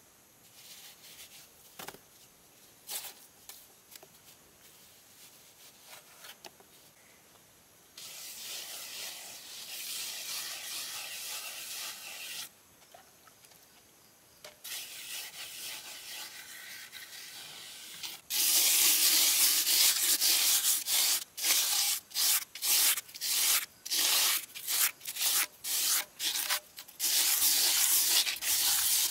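A pad rubbed over fresh cement render, smoothing the surface. It starts faint with a few light taps and scrapes, becomes a steadier scraping, and about two-thirds in turns loud, in quick back-and-forth strokes about two a second.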